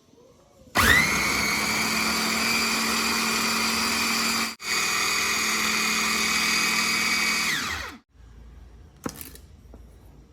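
Electric blender running for about seven seconds: the motor spins up with a rising whine, cuts out for an instant about halfway, then runs on and winds down. A single click follows shortly after it stops.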